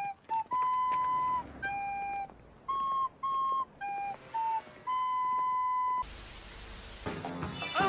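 A simple electronic beeping tune: a string of held pure notes hopping between a few pitches, some long, some short. About six seconds in the tune stops and TV static hiss takes over.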